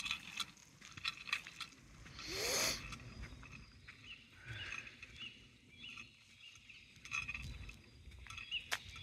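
Birds chirping in short, repeated notes, with one brief harsh call that rises in pitch about two and a half seconds in. Scattered light clicks throughout.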